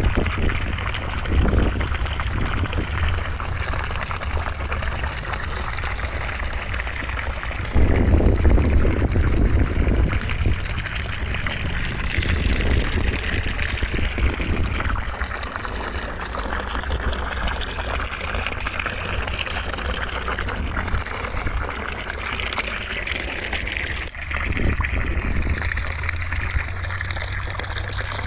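Continuous rush of running, gushing water. The low end swells heavier about eight seconds in, and again near the end after a brief dip.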